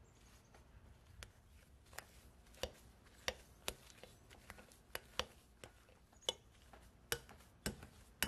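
Metal wire potato masher working through boiled potatoes in a glass bowl, its head knocking and clinking against the glass in about a dozen sharp, irregular strikes.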